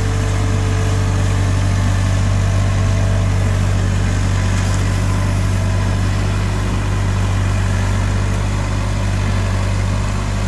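Diesel engine of an Avant 635 compact articulated loader running at a steady speed, a constant low hum.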